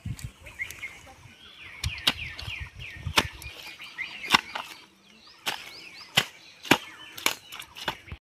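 A series of about ten sharp knocks at irregular intervals, coming roughly once a second in the second half, over small birds chirping with short falling calls that fade after the first few seconds.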